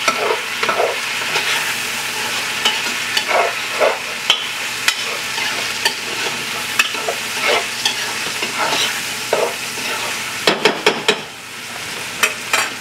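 Sweet onion, green bell pepper, green onions and bacon hog jowls sizzling as they fry in a pot, cooking until the onions turn translucent. A spoon scrapes and stirs through them about once a second, and a few quick sharp clicks come near the end.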